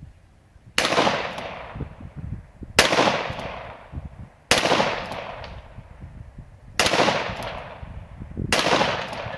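Ruger Vaquero single-action revolver in .45 ACP firing five shots about two seconds apart, each followed by a long echo dying away.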